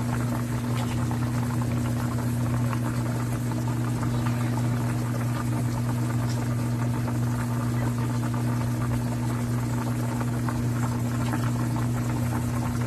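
A steady low hum holding one even pitch throughout, with a few faint ticks over it.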